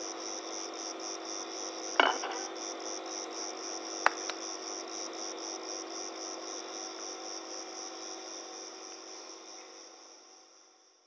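Crickets chirping in a steady, rapid, evenly spaced pulse over a low steady hum, with two sharp clicks about two and four seconds in; it all fades out near the end.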